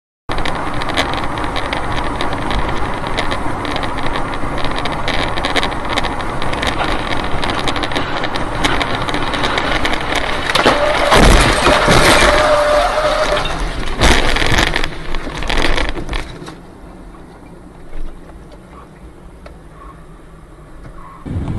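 Dashcam audio inside a car on a wet highway: steady, loud road and wind noise. A run of heavy crashing bangs comes a little past the middle as an airliner breaks up beside the road. The noise then drops to a much quieter cabin hum.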